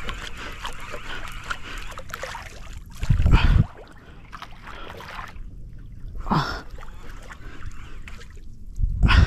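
Choppy sea water lapping and splashing against a small paddled boat, with many small ticks over the first few seconds. Two heavy low thumps, about three seconds in and just before the end, are the loudest sounds, and a brief falling sound comes midway between them.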